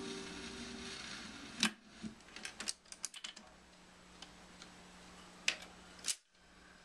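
Mechanism of a 1954 Pilot Model 1010 portable hi-fi's record changer cycling at the end of a record: a string of irregular clicks and light clunks as the tonearm lifts off and swings back toward its rest, with a louder click and a thump near the end. The last of the music dies away in the first second, and a faint steady hum runs under the clicks.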